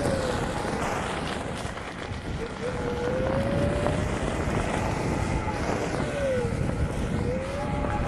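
Onewheel electric board's hub motor whining, the pitch rising and falling several times with speed, over a steady rumble of wind on the microphone.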